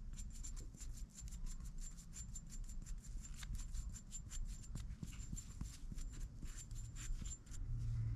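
Flux brush scrubbing flux paste onto a brass pipe adapter, a faint, quick run of short scratchy bristle strokes, several a second, as the fitting is prepared for a sweat solder joint.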